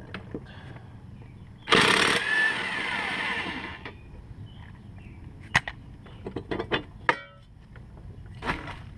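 A brief loud mechanical whir that winds down in pitch over about two seconds, followed by scattered sharp metal clicks and clinks from tools working on the mower deck's plate.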